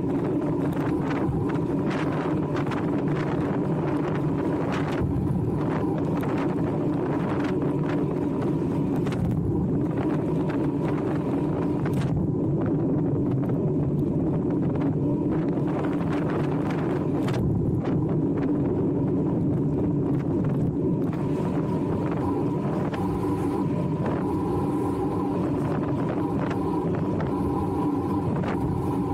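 Wind buffeting the bike-mounted camera's microphone, together with the roar of road-bike tyres on tarmac, at about 30 mph. Short knocks from road bumps come through now and then.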